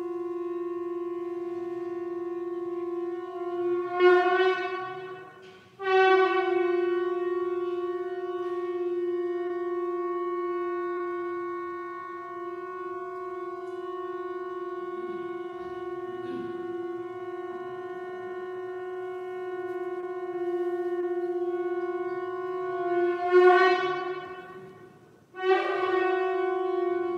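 Conch shell (shankha) blown in long, steady held blasts on a single pitch. Twice the blast swells brighter and louder, breaks off for breath and starts again, about five seconds in and near the end. It is the conch call that opens the evening aarti.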